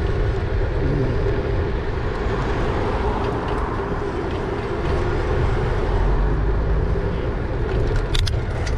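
Wind buffeting the microphone and road noise while riding an e-bike, a steady hum running underneath, with a few sharp clicks near the end.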